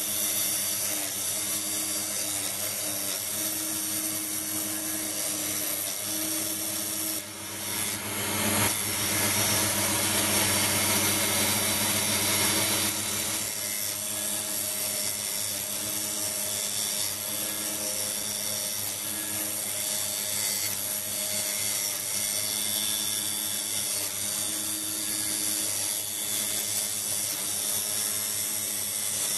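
Tool post grinder driven by a 775 DC hobby motor through a belt, its thin abrasive wheel grinding into induction-hardened steel turning in the lathe: a steady motor whine with the hiss of the wheel on the steel. It gets louder and rougher from about eight to thirteen seconds in, then settles back.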